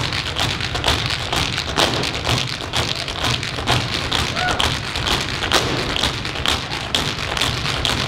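Several basketballs dribbled together on a stage floor: many overlapping bounces in a fast, uneven patter of thuds.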